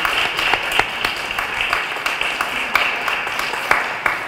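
Audience applauding, a dense patter of many hands clapping that starts to fade near the end.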